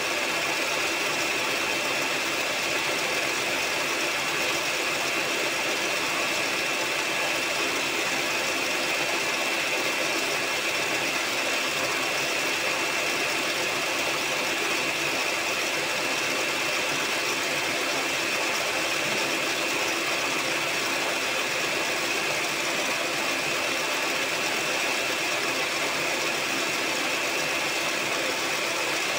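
Electric hand mixer running at a constant speed, its beaters whisking a thin egg mixture in a bowl, with a steady motor whine.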